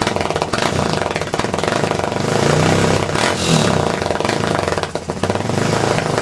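Single-cylinder four-stroke engine of a 2006 Honda TRX250EX quad running loud through a freshly tuned aftermarket exhaust pipe, revved up a couple of times around the middle.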